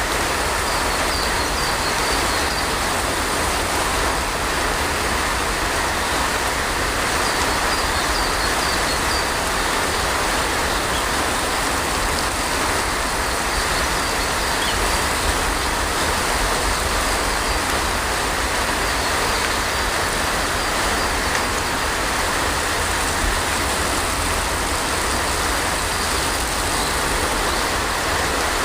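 Steady heavy rain, an even unbroken hiss with no thunder, and a few faint high chirps about a second in and again about eight seconds in.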